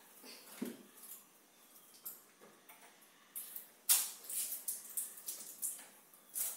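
Wet mop swishing over a tiled floor in a series of short strokes, a few in the first half and more in quick succession from about three and a half seconds in, the loudest about four seconds in.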